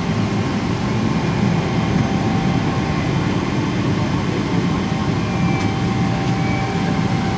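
Steady cabin noise inside a Boeing 777-300 on the ground with its engines running: a low, even rumble with a faint steady hum over it.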